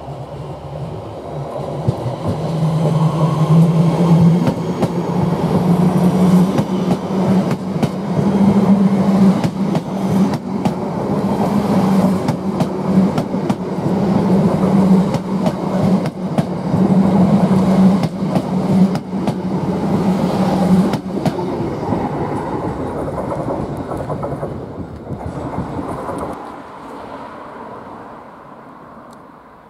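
West Midlands Railway electric multiple unit passing close by at a station: a steady low hum under the rumble of the wheels, with clicks as the wheels cross rail joints. It fades away over the last few seconds.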